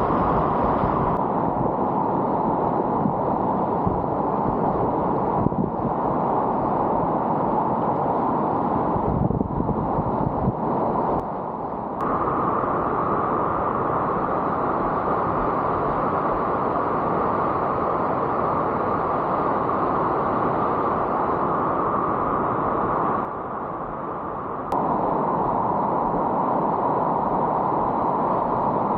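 Rushing whitewater of a river in high-water flood, a steady wash of noise, mixed with wind buffeting the microphone. It drops briefly twice.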